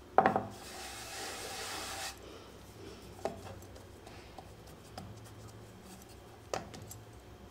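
Hands working floured dough on a wooden rolling board: a sharp wooden knock, then about a second and a half of dry rubbing hiss as flour is rubbed over the wooden rolling pin and board, then a few soft taps as the dough round is pressed flat with the fingers.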